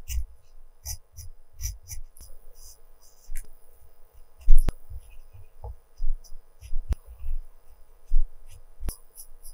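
Coloured pencil scratching across textured watercolour paper in short, irregular shading strokes, each with a soft low bump as the hand and pencil press on the sheet. The loudest bump comes about four and a half seconds in.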